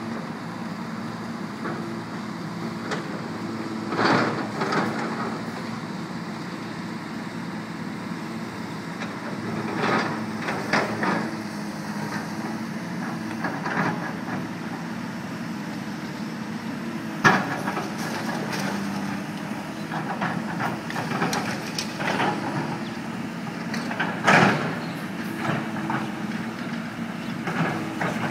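Heavy diesel machinery, engine-driven dewatering pumps and excavators, running steadily. Sudden metallic clanks and knocks come every several seconds, the sharpest about two-thirds of the way through.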